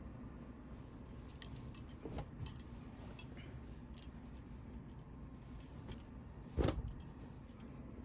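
Towels being laid and pressed into a kadai: light rustling and small clinking handling noises, with a dull knock about six and a half seconds in.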